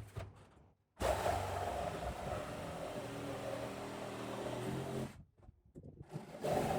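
A steady machine-like running noise with a low hum. It starts about a second in, stops for about a second just past the five-second mark, and then starts again.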